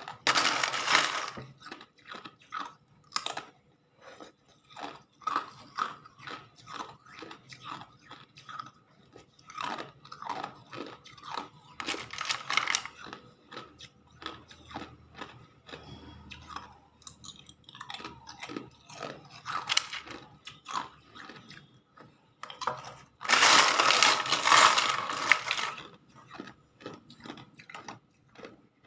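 Hard ice being bitten and chewed close to the microphone: a run of sharp crackling crunches, with longer, louder bouts of crunching about half a second in, near the middle, and for a few seconds near the end.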